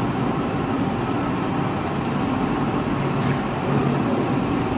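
Steady street traffic noise: a continuous hum of passing vehicles.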